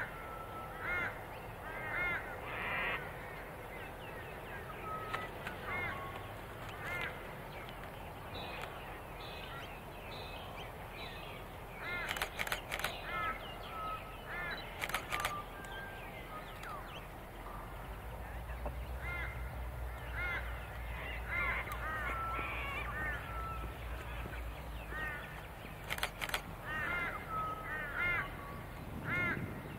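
Birds calling over and over with short, arched calls, often two or three in quick runs. Partway through, a low diesel locomotive rumble rises for several seconds as the train approaches. A few sharp clicks come around the middle and again near the end.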